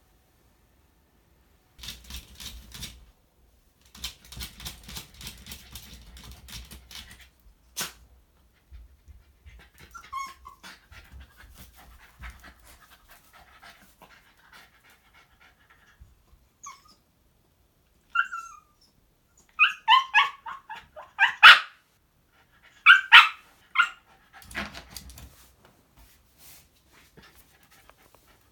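Shiba Inu dog giving a series of short barks and yips in the second half, the loudest a little past the middle, after a stretch of rustling and scuffling.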